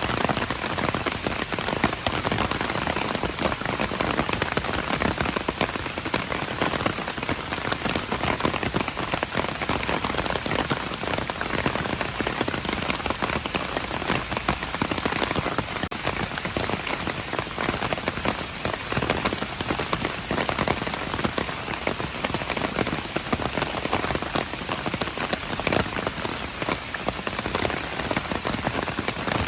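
Steady rain falling, a dense, even hiss of many drops that keeps up without a break.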